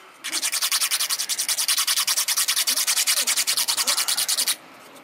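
An old nail file rasping quickly back and forth over the end of a small wooden dowel, in rapid even strokes of about ten a second, sanding it down to a slip fit. The strokes stop near the end.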